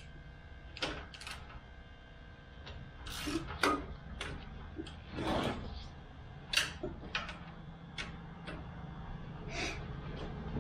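Irregular metal clicks and knocks of a wrench working the oil drain plug loose on a Honda GX270 small engine, about a dozen sharp ticks scattered over several seconds.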